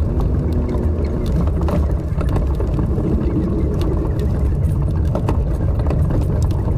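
1996 Ford F-150 pickup driving slowly over a bumpy snow-covered track, heard from inside the cab: a steady low engine and drivetrain rumble with scattered short knocks and rattles.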